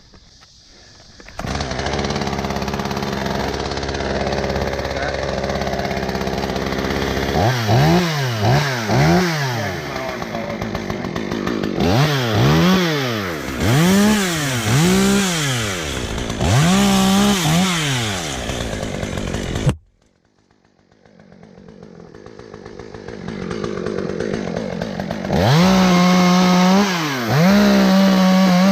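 Two-stroke chainsaw running steadily, then revved up and down over and over. The sound cuts off suddenly about two-thirds of the way in. It builds back up and the saw is revved again, held briefly at high revs.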